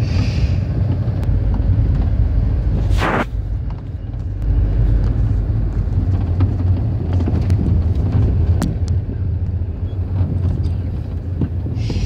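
Steady low rumble of a moving road vehicle (engine and tyre noise) heard from inside the cabin, with a brief hiss about three seconds in.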